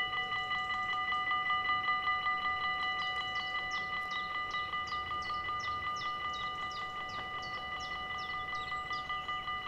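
Dutch level-crossing bell ringing fast and steadily, an even ringing of several fixed tones, as the crossing's half barriers come down: the warning that a train is approaching.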